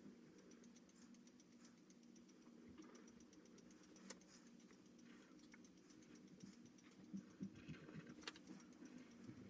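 Faint taps and light scratching of a pen drawing on paper, over a low steady hum, with a few sharper taps about four seconds in and a cluster of them near the end.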